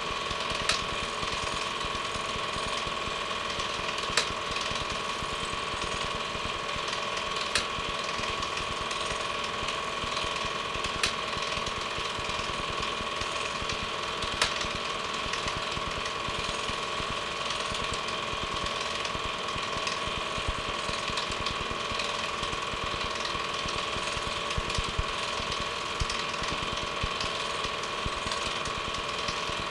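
Film projector running: a steady, rapid mechanical clatter with a constant hum, and a sharper click every few seconds.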